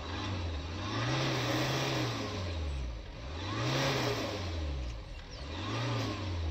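BMW 520d (G30)'s 2.0-litre four-cylinder turbodiesel revved three times with the car standing still, the engine note rising and falling back each time, the first rev held longest.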